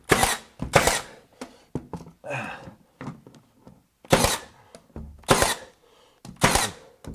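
Battery-powered Milwaukee M18 nailer firing nails through a plywood rail into the wall, five sharp shots: two in quick succession, a pause, then three about a second apart. The user thinks the nails keep missing the stud behind.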